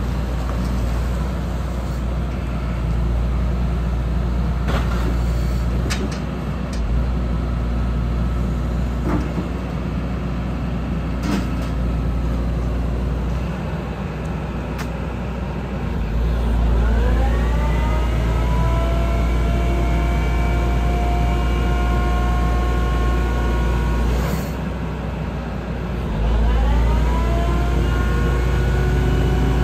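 Hyundai R170W-7A wheeled excavator's diesel engine running under hydraulic load, with several sharp knocks in the first half. Twice, about halfway and again near the end, the engine and hydraulics rise in pitch and hold a louder, steady higher note as the boom pushes the bucket down to lift the front wheels off the ground.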